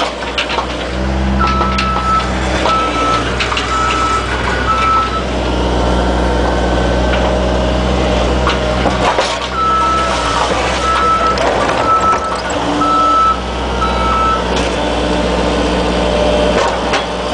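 Excavator engine running with its travel alarm beeping in two runs of about five beeps each, the second run starting about halfway through, with scattered knocks and clanks.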